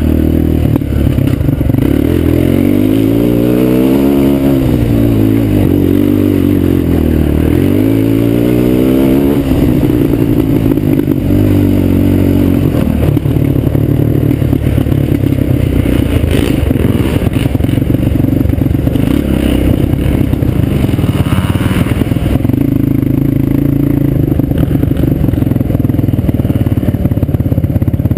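Suzuki LT-Z250 quad's single-cylinder four-stroke engine under way, its pitch rising and falling several times in the first ten seconds as throttle and gears change, then running more steadily.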